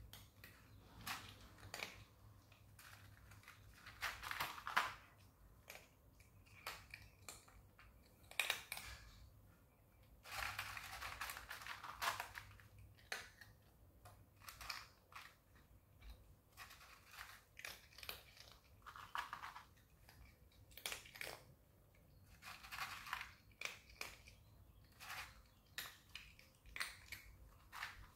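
A cat chewing dry kibble out of a foam tray: quiet, irregular crunches and clicks, bunching into a longer spell of crunching about ten seconds in.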